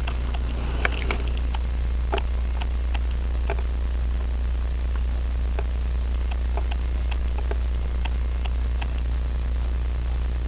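Light, irregular clicks and taps of small watchmaker's tools on pocket-watch parts, over a steady low hum.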